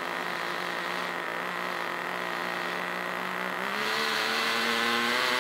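Small nitro glow-plug RC car engine running at a steady idle; its pitch and loudness step up slightly about three and a half seconds in.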